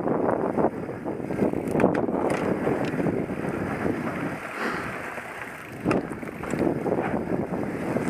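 Norco Aurum downhill mountain bike descending a dirt track: tyres rolling over dirt and leaf litter, the bike clattering and knocking over bumps, with wind buffeting the microphone. It eases off for about a second around four and a half seconds in, ending in a sharp knock.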